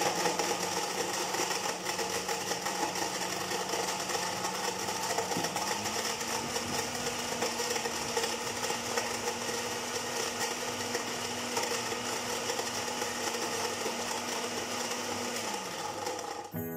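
Electric countertop blender running, grinding a thick load of milk, bananas, dates and nuts into a shake. About five seconds in its pitch steps up and holds. Near the end it winds down and stops.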